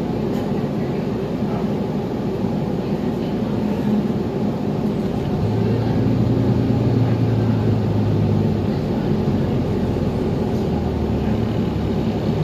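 2021 New Flyer XDE40 Xcelsior diesel-electric hybrid city bus running, heard from on board: a steady low drone of the drivetrain. A deeper hum grows stronger about halfway through, then settles lower in pitch near the end.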